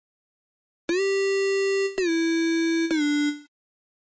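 A Bitwig Poly Grid synth patch plays three sustained notes, starting about a second in, each a step lower than the last, with a sharp click at the start of each note. The patch runs its signal through a sample-and-hold resampler clocked by a pulse wave, set to a low resampling frequency that degrades the sound.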